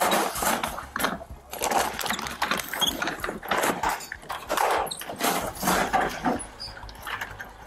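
Police dog barking over and over in short, uneven bursts.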